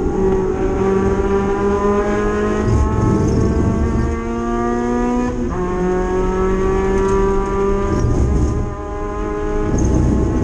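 Mazda MX-5 race car's four-cylinder engine at full throttle, heard from inside the cockpit. It climbs steadily in pitch, drops back sharply about five seconds in, climbs again, and drops once more about eight seconds in, as with gear changes or lifts.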